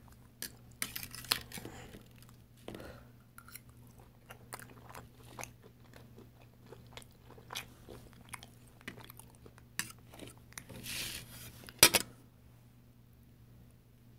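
Close-miked chewing and biting of a spicy seafood boil of shrimp, andouille sausage, corn and potatoes: irregular wet clicks and crunches, with the small clinks of a fork in the foil pan. One sharp knock near the end stands out as the loudest sound.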